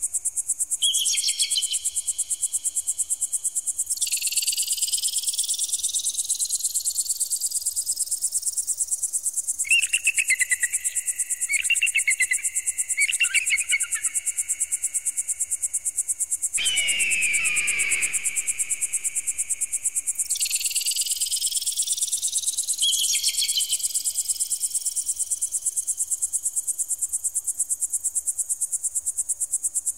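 Electronic bird-repeller sound: a rapid, high-pitched pulsing runs throughout, with steady and warbling electronic tones layered over it. Two long rising whistle sweeps come, about four seconds in and again past two-thirds of the way, and a falling screech-like glide comes just past halfway.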